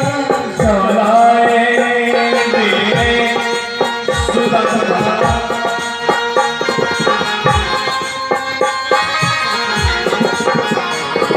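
Instrumental interlude of a live Hindi devotional bhajan: harmonium and electronic keyboard play the melody over a hand-played dholak rhythm. The dholak's bass strokes fall in pitch, about one a second, between sharper treble slaps.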